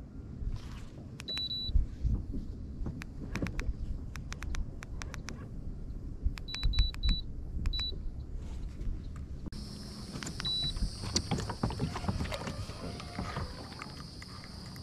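Short high electronic beeps from the i-Pilot trolling-motor remote, once or twice about a second and a half in, then a quick run of three around seven seconds and more after, over light clicks of rod and reel handling. About two-thirds of the way through, the kayak's electric trolling motor starts a steady whir.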